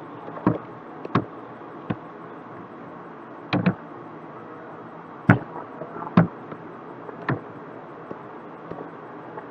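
Sharp, irregularly spaced clicks of a computer mouse and keyboard, about eight of them, one a quick double click, over a steady room hiss.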